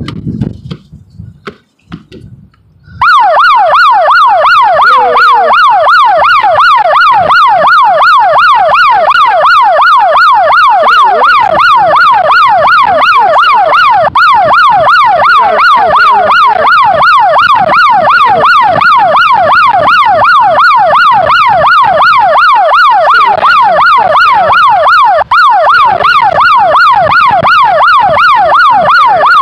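A loud electronic siren-like alarm tone starting about three seconds in, sweeping rapidly up and down in pitch about three times a second without a break. Before it, a short burst of wind rumble on the microphone.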